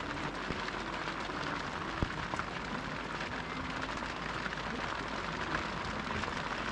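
Steady rain falling at night: an even hiss with many small ticks of drops landing on wet ground.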